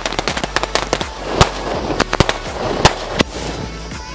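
A 50-shot battery of two-sound sky shot fireworks firing in quick, irregular succession: a dense run of sharp bangs and crackles, with a few much louder reports about one and a half and three seconds in. The firing thins out after about three seconds.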